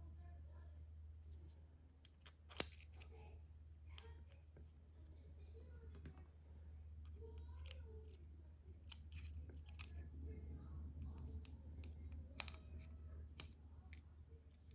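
Scattered small clicks and taps of a Spyderco Stretch 2 folding knife's parts being handled and fitted together during reassembly, the sharpest about two and a half seconds in, over a faint steady low hum.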